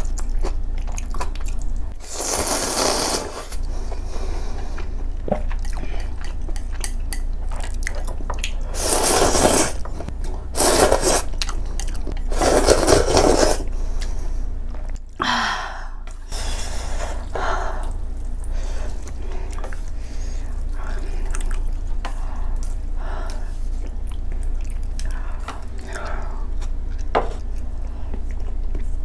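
A person slurping spicy ramen noodles with soft tofu, close to the microphone, with several long loud slurps in the first half and chewing and wet eating sounds after. Utensils scrape the dish, and near the end broth is eaten from a wooden spoon.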